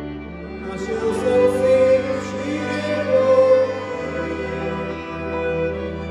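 Folk string band of violins and double bass playing a tune with long held notes.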